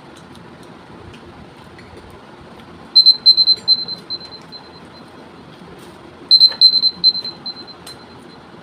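Phone countdown timer alarm going off as the one-minute limit runs out: a quick run of high beeps, about five a second, growing fainter over about a second and a half. The run starts about three seconds in and comes again about three seconds later.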